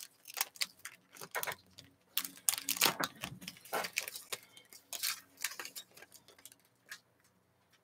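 Foil trading-card pack wrappers crinkling and tearing as gloved hands rip the packs open: a rapid, irregular run of crackles.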